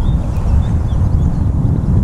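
Wind buffeting the camera microphone: a loud, steady, deep rumble.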